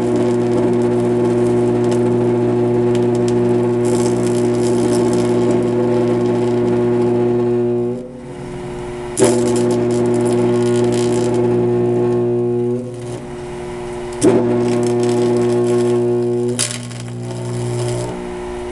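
Carbon arc torch's arc buzzing with a steady electrical hum and a crackling hiss. The arc goes out about eight seconds in and is struck again with a sharp crack a second later, then breaks and restrikes with a crack once more near fourteen seconds.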